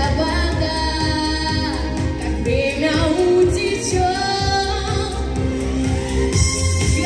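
A young girl singing a pop ballad into a handheld microphone over a backing track with a steady beat and bass, holding and sliding between long notes.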